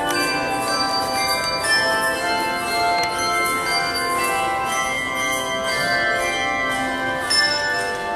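Handbell choir playing: brass handbells rung in chords, many notes ringing on and overlapping, with one brief louder accent near the end.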